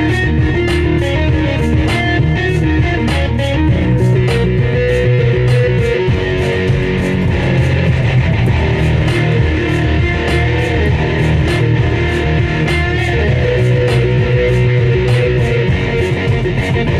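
Music with guitars and a bass guitar over a steady beat.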